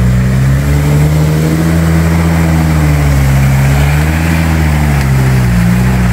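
Toyota Hilux pickup's engine working under load as it climbs out of a muddy river crossing, its speed rising and falling gently.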